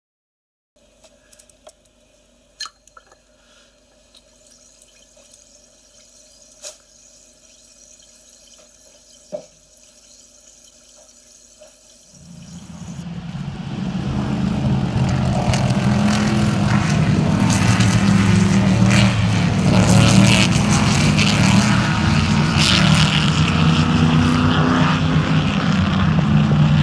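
Faint background with a few small clicks, then about twelve seconds in the engines of a pack of historic racing cars rise and run loud and continuous as the cars pass on the circuit.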